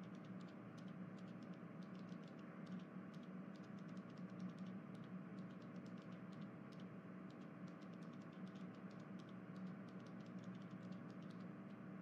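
Faint, irregular clicking, several clicks a second, like typing on a keyboard, over a low steady hum.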